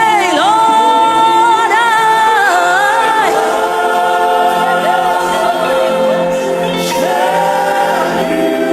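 Gospel worship music: singing with long held notes that waver in pitch, over steady sustained chords.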